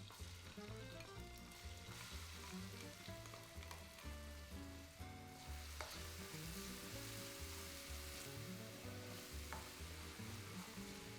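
Food sizzling as it fries in oil in a pan, with a couple of light clicks, the sizzle growing stronger about halfway through. Background music plays underneath.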